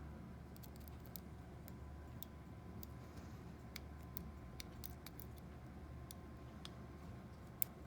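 Lock pick and tension wrench working the pins of a small 30 mm pin-tumbler padlock: faint, irregular metallic clicks and ticks, with one sharper click near the end.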